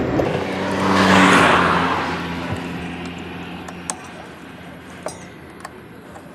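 A motor vehicle passing by: engine and road noise swell to a peak about a second in, then fade away over the next few seconds. A few sharp light metal clicks follow, from a screwdriver working the bolts of the brush cutter's attachment housing.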